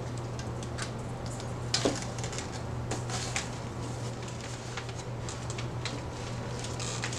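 Dry sphagnum moss crackling and rustling under the hands as it is pressed and wrapped onto an orchid mount, with scattered sharp crackles, the loudest about two seconds in.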